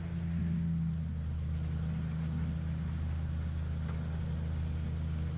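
Motorboat engine running steadily at an even speed, a constant low hum.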